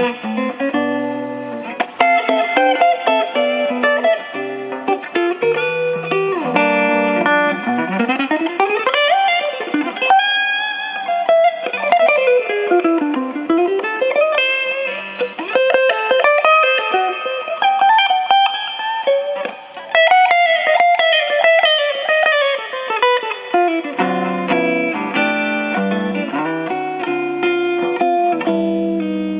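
Solo guitar playing: chords at first, then fast single-note lines with long sliding pitch sweeps up and down through the middle, going back to chords for the last few seconds.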